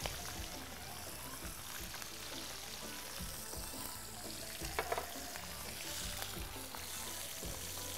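Chicken pieces sizzling in oil in a frying pan on a gas burner, with a couple of light knocks about five seconds in.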